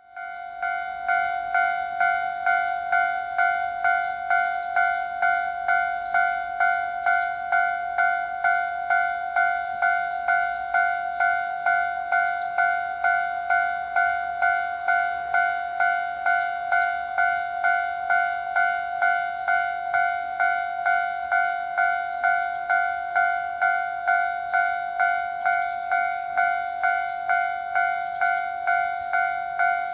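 Japanese level-crossing warning bell ringing, its electronic 'kan-kan' strokes repeating evenly at about one and a half a second.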